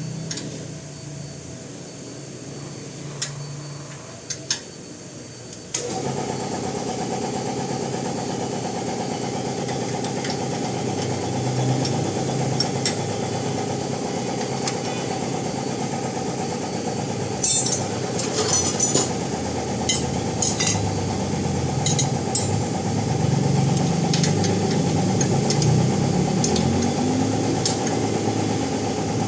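A motor or engine starts up about six seconds in and runs steadily, with a few sharp metallic clicks partway through.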